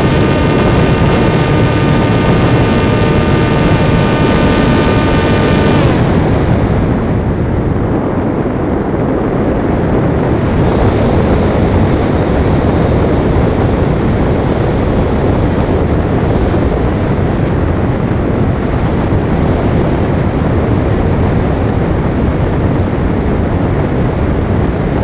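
The motor of a Skywalker FPV model plane gives a steady whine over heavy wind rush on the onboard microphone. About six seconds in the motor cuts off, leaving only the rush of wind as the plane flies on.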